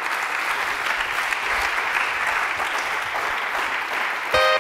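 Lecture-hall audience applauding steadily. Near the end the clapping cuts off and a held musical tone comes in.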